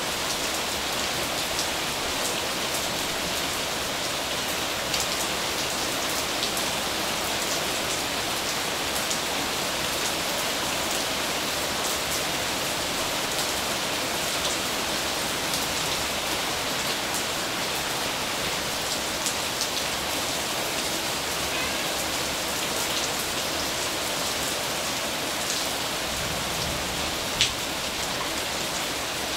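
Steady rain falling on a surface, with scattered small drip-like ticks. A single sharp tap near the end.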